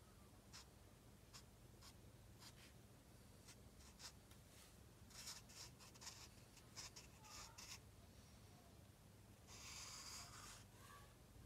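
Black felt-tip marker drawing on paper: a run of short, faint scratchy strokes, with one longer stroke near the end.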